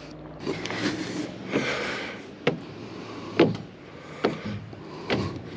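Slow footsteps, a step about every second, with scuffing and rustling between the first few steps.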